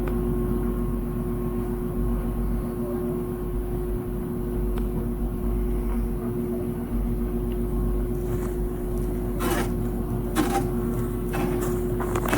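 Wind rumbling on the microphone during a chairlift ride, over a steady low hum, with a few short clacks in the last few seconds.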